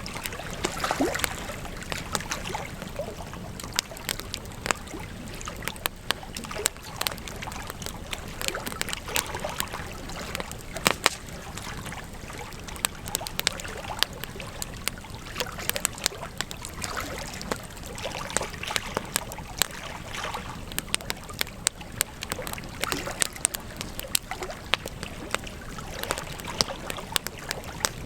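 Wood campfire burning: irregular sharp crackles and snaps of burning wood over a steady hiss of flames, with one louder pop near the middle.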